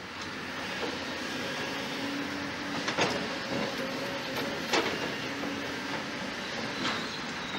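Komatsu PC200 hydraulic excavator's diesel engine running steadily as it digs rock and earth, with two sharp knocks about three and five seconds in.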